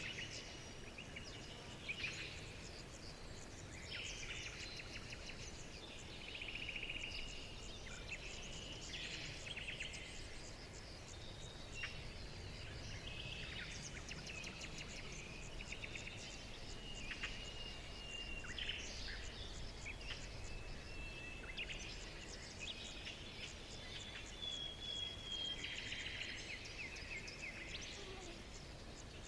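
Several songbirds singing and calling over one another, a dense mix of quick trills, chirps and short whistles, over a steady low rumble of background noise.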